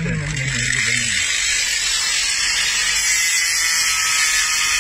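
Small electric angle grinder running, its cutting disc grinding through a piece of bone stuck in a dog's mouth, a loud steady high hiss. A voice is heard briefly at the start.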